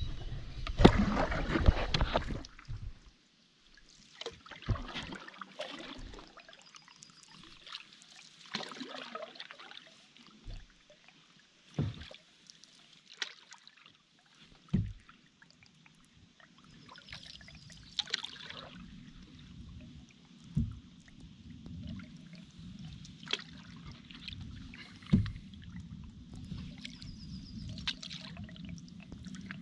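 Canoe on the water: scattered splashes and water trickling, with a few sharp knocks against the hull. A steady low rumble sets in about halfway.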